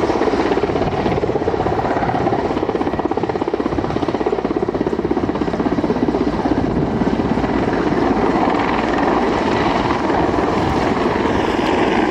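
Two military helicopters, a Mi-24 attack helicopter and a Mi-8-family transport helicopter, flying by together: a steady, rapid beat of their main rotor blades.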